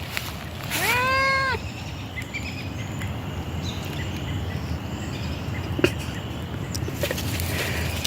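Domestic cat giving one long meow that rises and falls in pitch about a second in, followed by steady outdoor background with faint bird chirps and a single sharp tap near six seconds.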